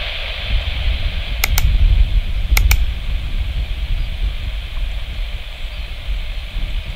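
Distant Airbus A320 jet engines (CFM56) spooled to takeoff power as the airliner begins its takeoff roll: a steady low rumble with a hiss over it. Two pairs of sharp clicks come in the first three seconds.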